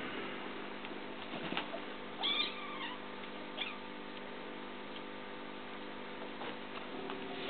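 A cat gives one short meow about two seconds in while two cats wrestle in play, with a few light scuffles and taps around it.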